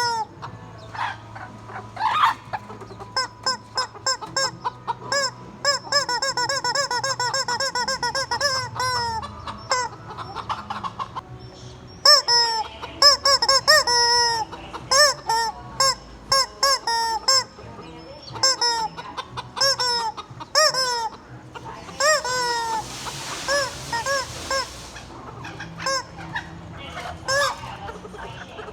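Many short, honking squawks in quick runs from rubber squeeze-toy chickens, mixed with the clucking of real chickens.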